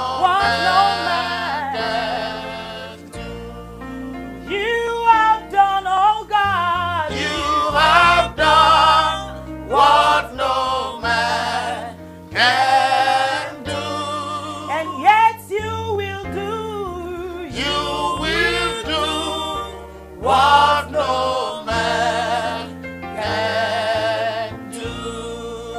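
Gospel worship song: singing with wavering, drawn-out melodic runs over held low accompaniment notes.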